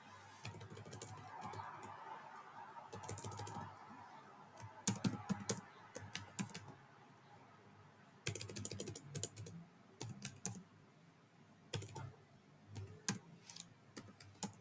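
Typing on a computer keyboard in irregular bursts of keystrokes, with short pauses between the bursts.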